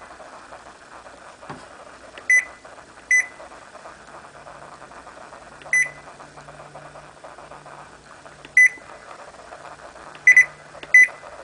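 Zojirushi BB-HAC10 bread maker's control panel beeping as its buttons are pressed: six short, high single beeps at irregular gaps of about a second to three seconds, each one confirming a key press while the bread course is selected.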